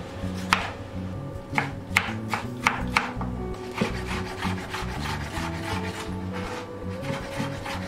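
Chef's knife cutting tomatoes on a bamboo cutting board: a handful of sharp knocks as the blade strikes the board, then a quicker run of lighter chops as the slices are diced. Soft background music plays underneath.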